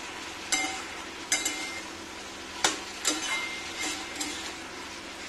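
Ridge gourd and potato pieces sizzling in a metal kadai as they are stirred with a metal spatula, which clinks and scrapes against the pan about six times.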